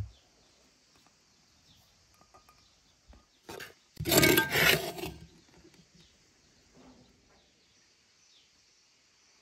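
Flour being scooped with an enamel bowl: a soft knock right at the start, then about four seconds in a loud, rough scraping for about a second as the bowl is dragged through flour against a clay jar.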